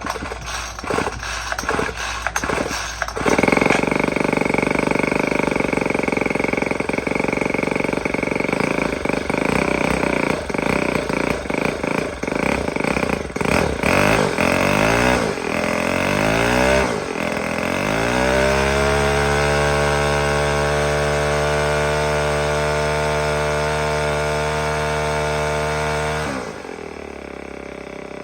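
Black Max four-stroke string trimmer engine being pull-started with the choke on. It catches after a few pulls, runs unevenly with its speed rising and falling, then settles into a steady idle before cutting off near the end. It runs now that the water has been primed out of its fuel and carburetor.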